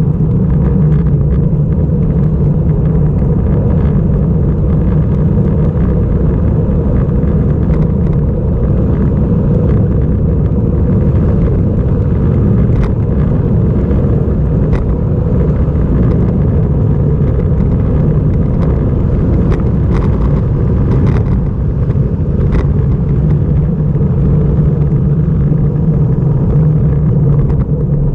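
Wind rushing over a bike-mounted GoPro's microphone on a fast road-bike descent: a loud, steady low rumble, with a few sharp clicks past the middle.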